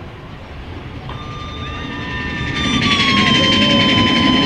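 Big Thunder Mountain Railroad's mine-train roller coaster approaching and growing louder. A steady high tone comes in about a second in and falls slightly. Then the rumble and fast clatter of the cars on the track rise up near the end.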